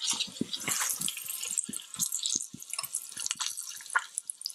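Chuck roast searing in hot olive oil in the stainless inner pot of an Instant Pot on sauté: steady sizzling with dense crackling spatter, and metal tongs knocking against the pot now and then.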